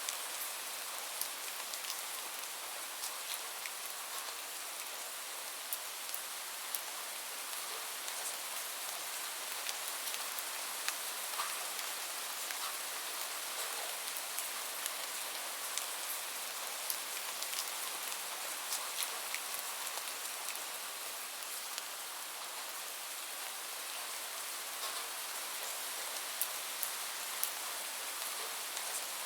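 Light rain falling steadily: an even hiss with many scattered individual drops ticking sharply on a hard surface.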